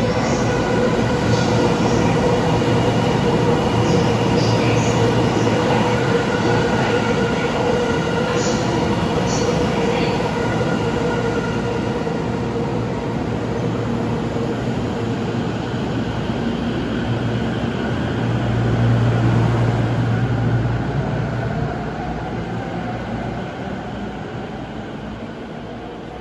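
JR East E231-500 series electric commuter train at an underground-style station platform: it stands with its doors shutting, then pulls away, its traction motors giving a faint rising whine as it gathers speed. The rumble is loudest as it starts off, about two-thirds through, and then the running noise fades as it leaves.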